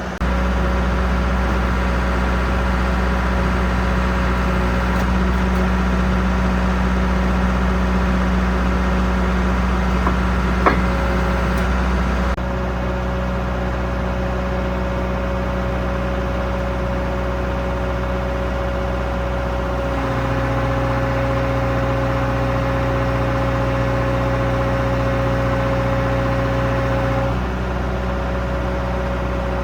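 Fraste MD-XL drilling rig running steadily, its hum stepping up and down as it is put under different loads. It drops in level about twelve seconds in, a higher steady hum joins about twenty seconds in and stops near the end, and there is a single short click about eleven seconds in.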